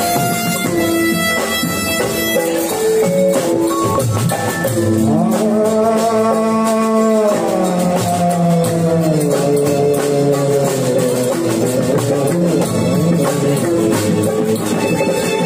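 Live Gujarati devotional rass-kirtan music over a PA: an electronic keyboard plays the melody over drums, and a man sings into a microphone, holding one long note about five seconds in.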